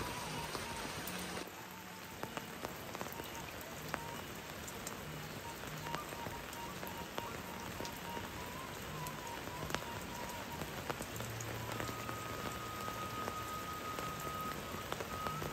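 Steady rain falling, with many sharp individual drop hits over the continuous hiss.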